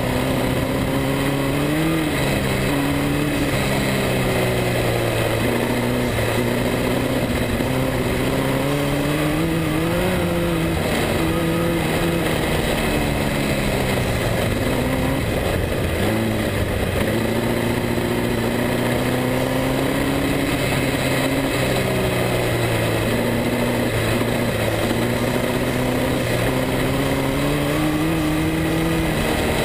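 Speedway midget car engine heard from on board, running hard around a dirt oval. Its pitch climbs and drops every few seconds as the car accelerates and backs off, with a deep dip about sixteen seconds in.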